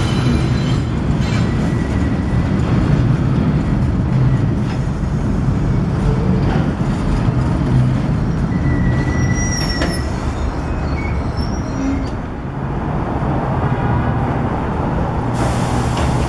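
R62A subway train running along a curved elevated steel structure: a steady rumble of wheels on rail, with brief thin wheel squeals on the curve about a second in and again around the middle.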